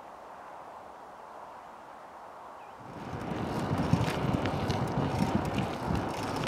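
A faint steady outdoor hiss, then from about three seconds in, wind buffeting the microphone: a louder, gusty low rumble with scattered crackles.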